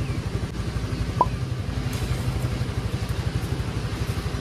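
Chinese 150cc scooter's single-cylinder four-stroke engine idling steadily with an even pulsing beat, warmed up and running smoothly.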